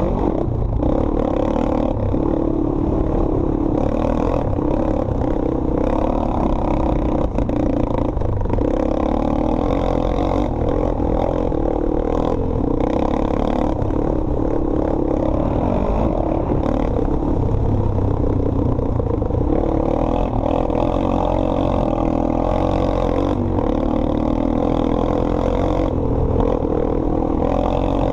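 ATV engine running hard on a dirt track, its pitch rising and falling as the throttle is worked through the corners and straights.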